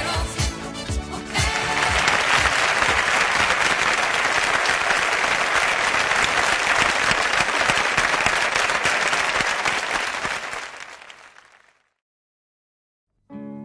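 A song ends and an audience applauds for about ten seconds, the applause fading out. After a second or so of silence, the next song starts near the end.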